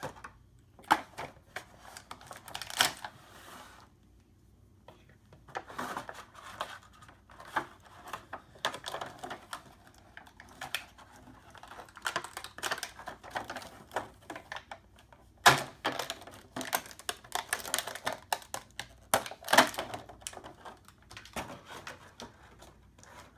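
Plastic action-figure packaging crinkling and clicking in irregular bursts as a figure and its plastic ladder accessory are worked out of a plastic bag and a clear plastic tray. A few sharper snaps come a little over halfway through.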